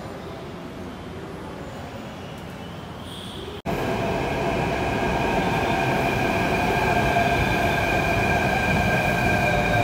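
Low background hum, then after a cut about three and a half seconds in, a metro train running along the platform: a steady rumble of wheels on rail with a high, even whine over it.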